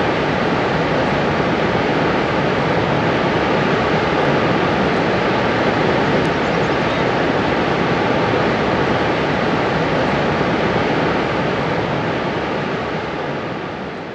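Niagara Falls roaring: a loud, steady rush of water crashing onto rocks, fading out near the end.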